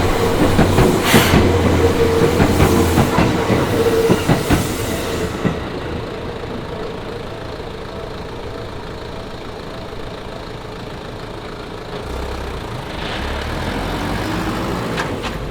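Seibu Haijima Line train passing over a level crossing, its wheels clattering over the rail joints for about five seconds. Then the sound drops to a quieter, duller rumble.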